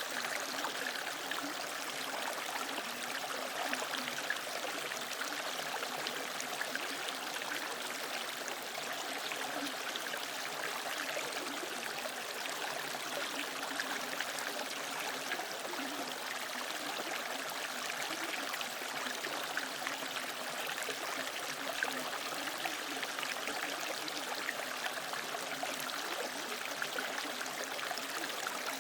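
A mountain valley stream running over rocks, a steady rushing and splashing of water.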